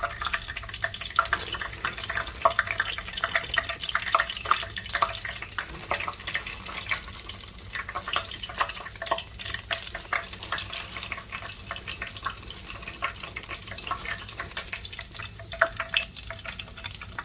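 Crinkle-cut fries deep-frying in hot oil: a steady, dense crackle and sizzle of many small pops over a hiss.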